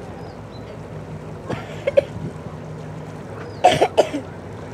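Fireboat's engine running with a steady low hum as the boat approaches, with two short loud bursts of people's voices, one about a second and a half in and a louder one near the end.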